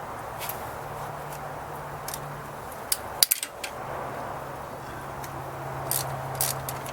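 Light metallic clicks and clinks of hand tools and small parts being handled, a cluster about three seconds in and a few more near the end, over a steady low hum.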